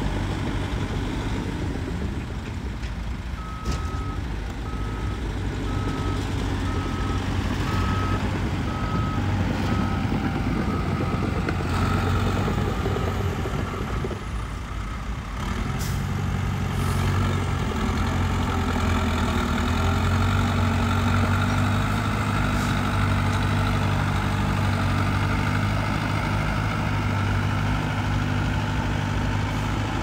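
Heavy diesel engine of earthmoving machinery running steadily, growing louder about halfway through. A reversing alarm beeps about eight times, once a second, from a few seconds in until shortly before the middle.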